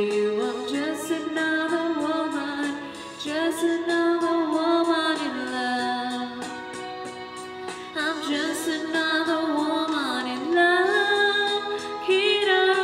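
A woman singing a slow song into a handheld wireless karaoke microphone, holding long notes that waver and glide in pitch.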